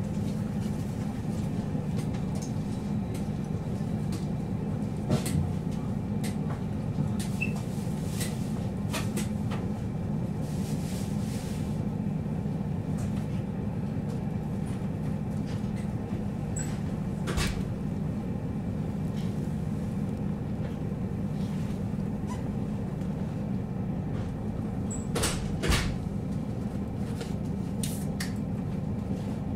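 JR Hokkaido KiHa 40 diesel railcar standing with its engine idling: a steady low hum. A few scattered sharp clicks and knocks are heard over it, the loudest two near the end.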